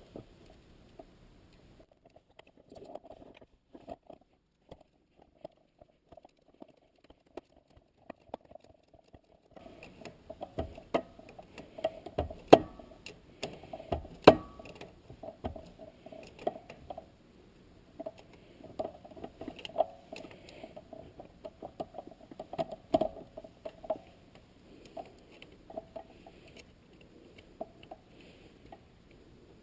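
Scattered metallic clicks and knocks of hand work on a manual-transmission short throw shifter and its shift-stop adjusters, with two sharper, louder clicks about two seconds apart near the middle.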